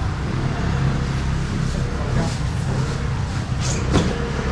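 Steady low rumble of an idling truck engine, with one sharp knock about four seconds in.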